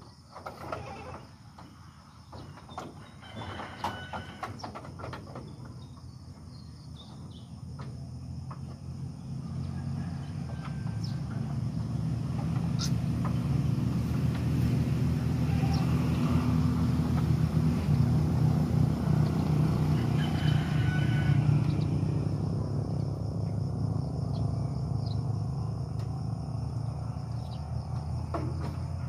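A low engine rumble that grows louder over about ten seconds, is strongest in the middle and then eases slightly. There are scattered clicks and knocks in the first few seconds.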